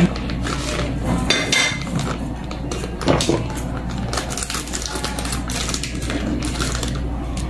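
Plastic bag of rice flour rustling and crinkling as it is handled and opened, with many scattered small clicks and light knocks.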